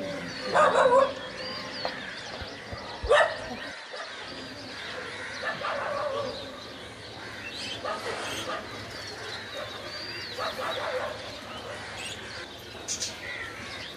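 Caged budgerigars chattering and warbling with a string of small chirps. A dog barks loudly twice in the first few seconds, then more faintly a few more times.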